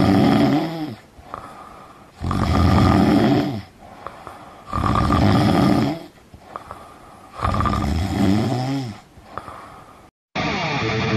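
A person snoring: four long, loud snores about two and a half seconds apart.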